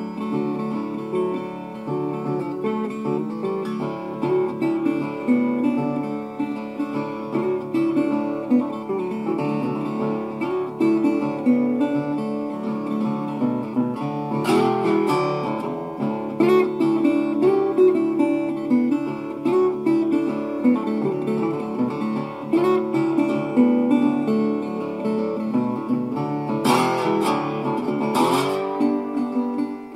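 Background music: a fingerpicked acoustic guitar tune, with sliding notes about halfway through and again near the end.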